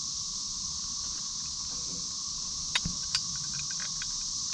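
Steady, shrill chorus of insects, with two sharp metal clinks close together about three seconds in as bolt hardware is handled.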